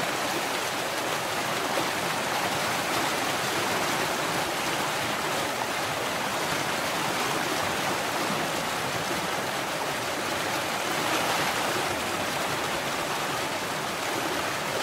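Heavy stream running steadily, a dense rush of water over rocks with no breaks.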